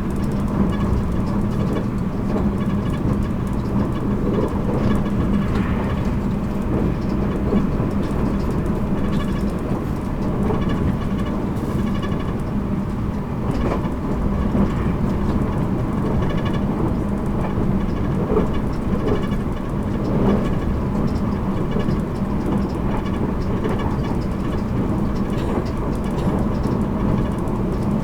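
JR Kyushu 783 series limited express train running at speed, heard from inside motor car MoHa 783-13. The rumble of wheels and running gear stays steady, under a constant low hum.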